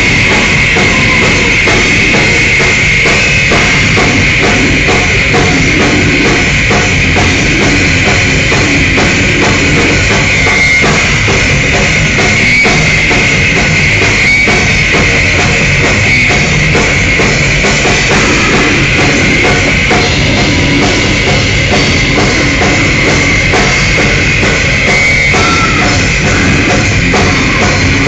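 Death metal band playing live: distorted electric guitars and bass over fast, dense drumming with cymbals, loud and unbroken.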